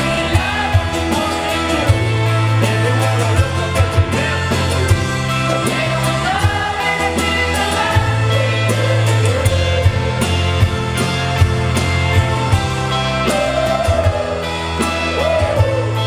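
Live rock band playing through a large amplified sound system: electric guitars, bass and a drum kit with a steady beat, and a male lead singer singing over them. Heard from the audience, so the sound is loud and full of the venue.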